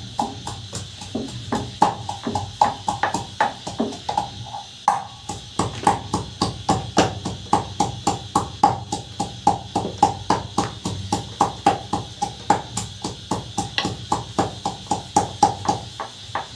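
Wooden rolling pin clacking against a round rolling board (chakla) as roti dough is rolled out, a steady rhythm of sharp knocks about three a second.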